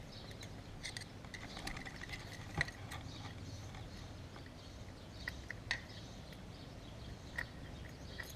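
Faint, scattered small clicks and ticks of a metal pick tool and fingers working at a motorcycle carburetor's top to free the throttle slide and cable, with one sharper click a little over two and a half seconds in.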